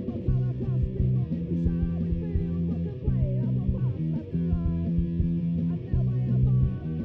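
Loud rock music with electric guitar, bass and a steady beat, the chords changing about every second and a half.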